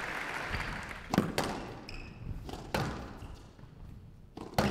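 Squash ball being struck by rackets and hitting the court walls in a rally: sharp thuds with a short ring, a quick pair about a second in, another near three seconds and one near the end. Applause dies away in the first second.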